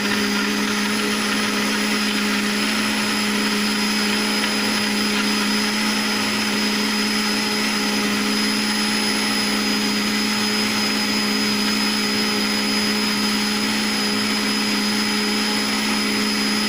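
Countertop blender motor running at a steady speed, blending garlic cloves with lemon and pineapple juice: a steady hum with a high whine above it.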